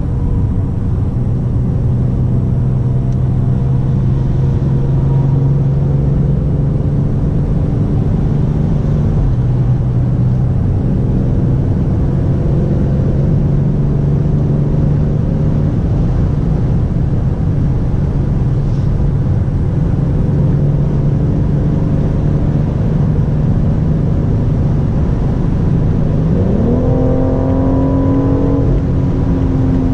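BMW M760Li's 6.6-litre twin-turbo V12 running steadily at speed over a low road rumble, its pitch drifting slowly up and down. Near the end the revs rise quickly and stay higher as the car accelerates.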